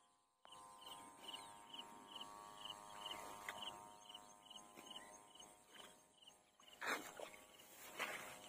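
Faint animal chirping, a short chirp repeated about four times a second over a faint steady drone; the chirping stops a little after halfway. Two sharper, louder noises come near the end.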